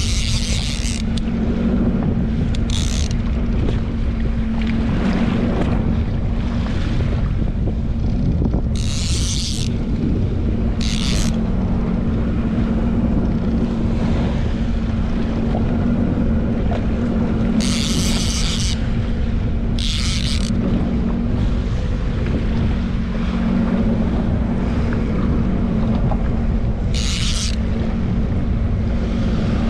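Jetski engine running steadily, with wind buffeting the microphone and sea noise, and short bursts of high hiss every few seconds.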